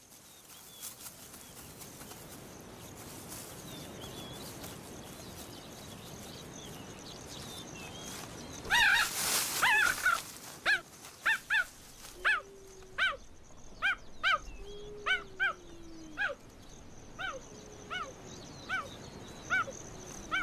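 Cheetahs chirping: after a brief, louder rasping outburst about nine seconds in, a long series of short, high, bird-like chirps follows, each rising and falling, about one or two a second.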